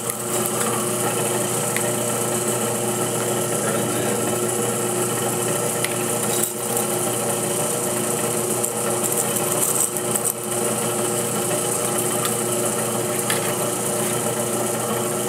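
Small electric gold-concentrating centrifuge running steadily, a continuous mechanical hum with a hiss of water flowing through it as wet sand is spooned into its feed funnel.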